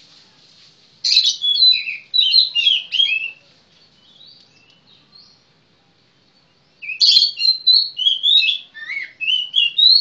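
Magpie robin (kacer) singing: a quick run of varied, sweet whistled notes about a second in, a pause, then a second rich phrase starting about seven seconds in.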